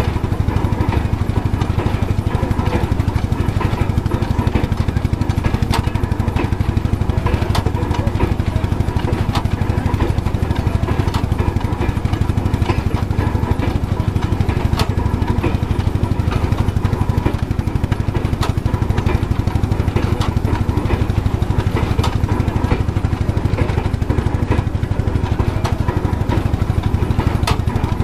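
Vintage wooden threshing machine running steadily, with the fast, even beat of the engine that drives it and a few sharp clicks.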